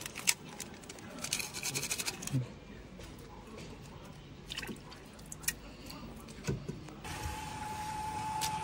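Quiet liquid and soft squishing handling sounds with scattered light clicks and a brief rapid rattle, typical of fuchka being prepared, shells filled and dipped in spiced water. Louder street noise with a steady tone comes up near the end.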